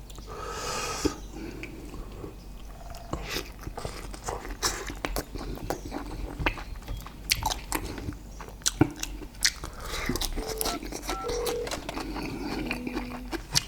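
A person eating: chewing and biting food, with many short, irregular mouth clicks.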